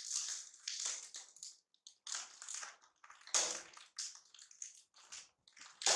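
Plastic snack packaging being handled, crinkling and rustling in irregular bursts.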